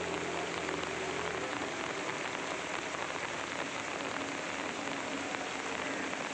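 Heavy rain falling steadily on surfaces, a dense even hiss. A low steady hum under it stops about a second and a half in.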